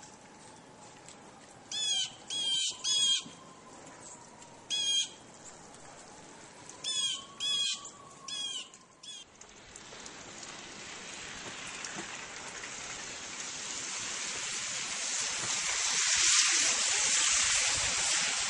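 A bird calling from the trees with short repeated calls, about six loud ones in the first half and a few fainter ones after. Over the second half a steady hiss of noise swells, loudest near the end.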